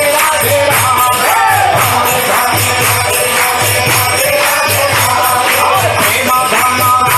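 Devotional kirtan: voices chanting over the held, steady tones of a harmonium, with small hand cymbals (kartals) keeping an even, jingling beat.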